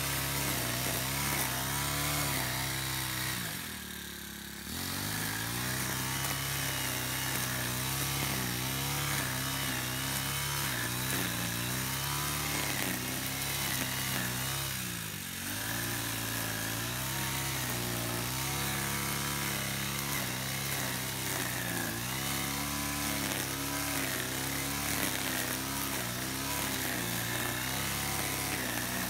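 Small four-stroke engine of a wheeled push-type brush cutter running at high speed while cutting grass, its note wavering as the load changes. The revs drop briefly twice, a few seconds in and about halfway through.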